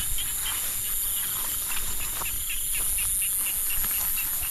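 Night chorus of insects and frogs: a steady high-pitched insect drone, with a short chirp repeating about four times a second. A few soft rustles of grass underfoot.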